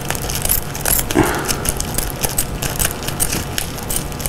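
Scissors cutting a sheet of bubble wrap: a run of quick, crisp snips with the plastic crinkling.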